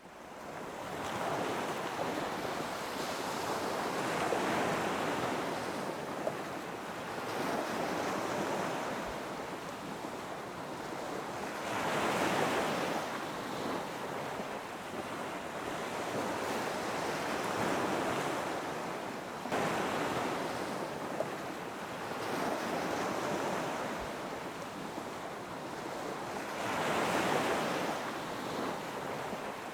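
Ocean surf breaking on a beach: a steady wash of water with waves swelling and crashing every few seconds, some wind on the microphone.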